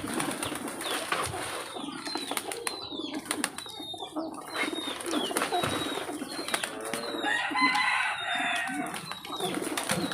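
Pigeons cooing and other birds chirping in short falling calls, mixed with sharp clicks and rustles from a pigeon being handled.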